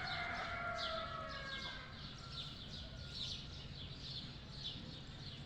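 Budgerigars chirping in quick, repeated short high calls, two or three a second. For the first two seconds a steady held tone, falling slightly in pitch, sounds under them.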